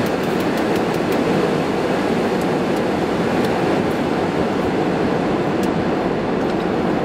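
Car air-conditioning blower running steadily: an even, loud rush of air filling the cabin, with a few faint crinkles of a paper food wrapper.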